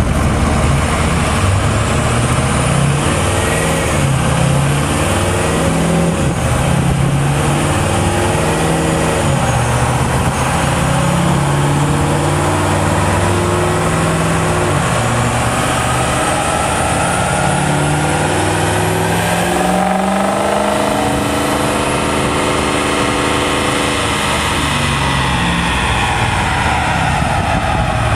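2005 Ford F-350's 6.0 Power Stroke V8 turbo-diesel running under load on a chassis dyno, its engine speed going up and down repeatedly. It then climbs steadily in a long rise through the second half and drops off near the end.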